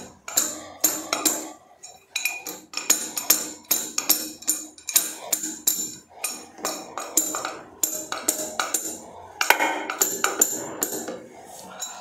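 Repeated light metallic clinks, about two or three a second, of a steel adjustable wrench tapping a Teflon-taped rubber washer into a toilet's flush bend pipe inlet, to seat the washer and seal the leak.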